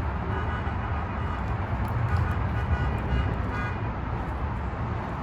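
Steady low rumble of vehicle traffic, with a faint, steady high tone over it from shortly after the start to just before four seconds.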